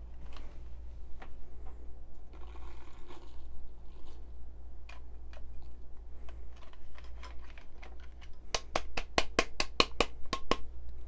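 A quick run of about a dozen sharp taps near the end, a hand knocking the stainless cup of an electric blade grinder to shake loose the last coffee grounds.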